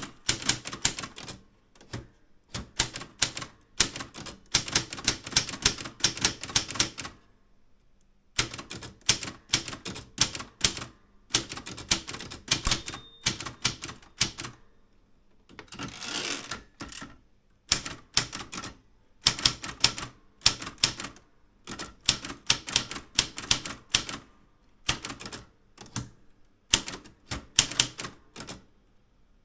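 Typewriter typing: keys struck in fast runs, with a short pause about seven seconds in. A little before halfway a single bell-like ding sounds, and a few seconds later comes a longer sweeping noise, typical of the carriage being returned. Then the keystrokes resume.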